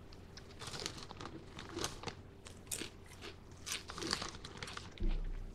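Close-up crunching and chewing of wavy potato chips: irregular crisp crunches bitten and chewed through, with a brief low thump about five seconds in.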